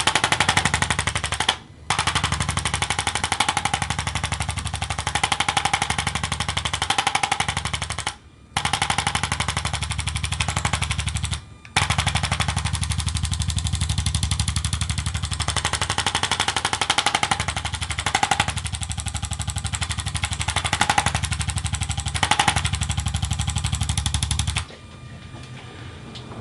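ArthroStim handheld chiropractic adjusting instrument firing a rapid stream of taps. It stops briefly three times and cuts off near the end.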